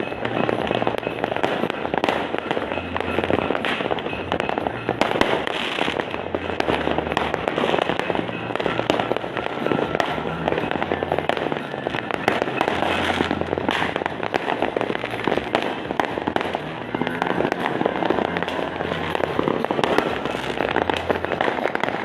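Many fireworks and firecrackers going off at once in a dense, continuous crackle of bangs, with music playing underneath.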